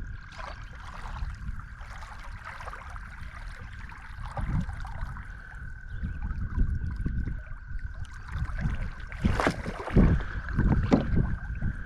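Swift river water rushing and gurgling around an anchored kayak, with wind rumbling on the microphone. A thin steady high tone runs underneath, and a few louder knocks and splashes come near the end.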